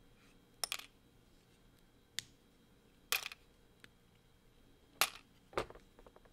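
LEGO plastic bricks being pulled apart and handled, giving sharp, irregularly spaced clicks and snaps, about six in all, with a few small ticks near the end.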